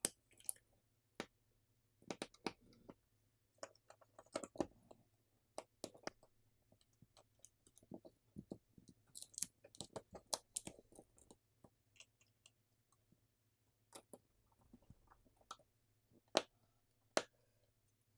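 Faint, scattered small clicks, taps and rustles of fingers handling smartphone parts, setting a battery and its flex cable into the phone's frame and pressing components into place. A few sharper clicks stand out, the loudest near the end.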